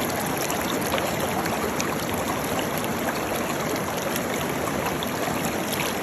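Waterfall: a steady rush of falling water that does not change.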